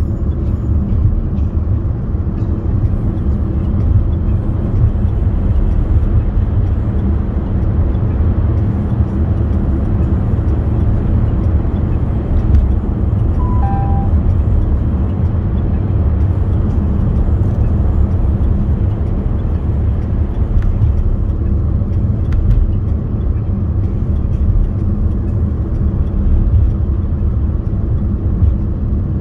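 Steady low rumble of a car in motion, heard from inside the cabin: road and engine noise. About halfway through, a short two-note falling chime sounds.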